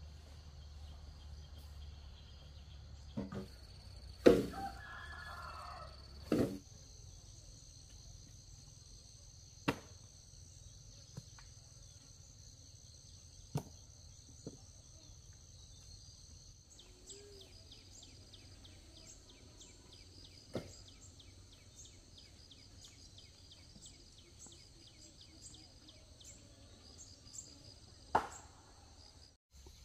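Insects trilling steadily in high tones, with a faster pulsing chirp joining about halfway through. About seven sharp knocks stand out at irregular intervals, the loudest about four seconds in.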